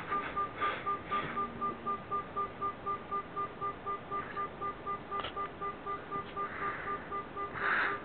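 Evenly pulsing electronic tones, a higher and a lower pitch beeping together a little over three times a second, leaking from headphones playing an I-Doser binaural-beat track. A few short hissy swells of noise come near the start and near the end.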